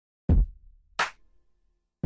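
Electronic drum-machine beat: a deep kick about a third of a second in, then a sharp, hissy snare-like hit about a second in.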